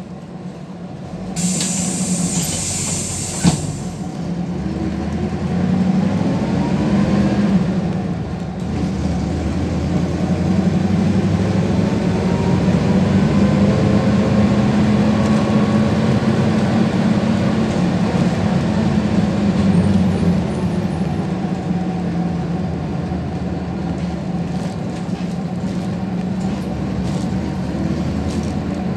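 Inside a PAZ-32054 bus: a loud hiss of compressed air for about two seconds near the start, ending with a clunk, then the ZMZ V8 petrol engine pulling away. It revs up, changes gear about eight seconds in, revs up again and settles into a steady cruise.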